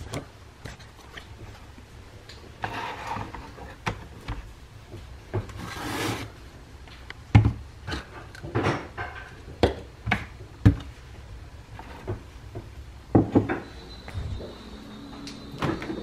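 Scattered knocks, clicks and clatter of things being handled and set down on a kitchen counter, with a couple of short rushing noises and cupboard or door sounds; a steady high tone comes in near the end.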